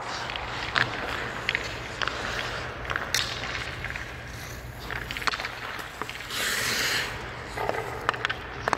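Hockey skates scraping on rink ice, with scattered clicks and taps of sticks and puck on the ice and a longer hissing skate scrape about six and a half seconds in, over a low steady hum.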